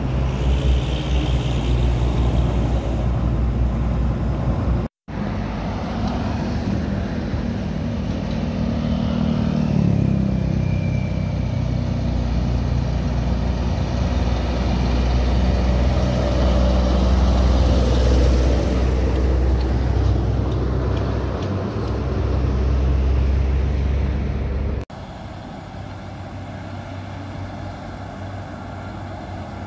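Heavy diesel trucks hauling loaded low-bed trailers driving past, engines running with a steady low drone. The sound cuts out briefly about five seconds in and turns quieter near the end.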